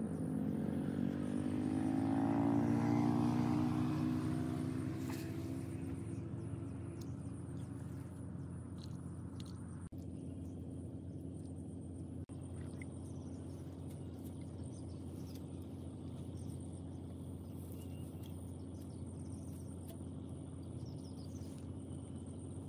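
A motor vehicle's engine passing close by, its pitch climbing and its sound swelling over the first few seconds before fading, then a steady low rumble with a few faint bird chirps.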